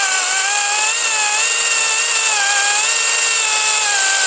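Makita XCU06 18-volt 10-inch cordless chainsaw cutting through a log: a steady electric motor whine whose pitch sags and recovers several times as the motor bogs under the cutting load.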